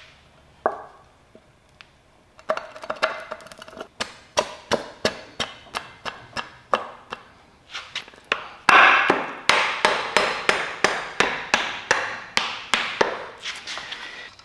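Hand tools working the boat's metal bracket hardware: a few scattered knocks, then a long run of sharp metallic taps or clicks at about three a second, loudest in the second half.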